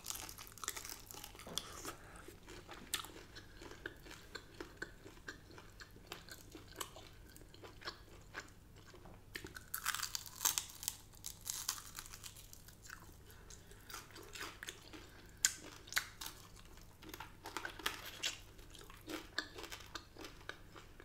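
Close-up sounds of a person biting, crunching and chewing crisp-skinned chicken wings and curly fries. The crunches come in irregular bursts, with the densest run about ten seconds in.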